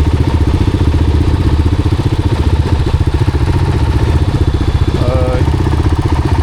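Motorcycle engine running steadily while riding, with a fast even pulse of its firing. A brief pitched sound, like a short voice or squeak, cuts in about five seconds in.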